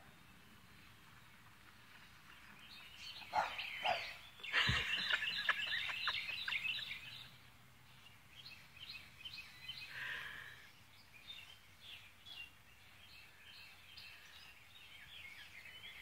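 Birds chirping and singing in the background, busiest and loudest from about three to seven seconds in. A few sharp knocks come about three to five seconds in.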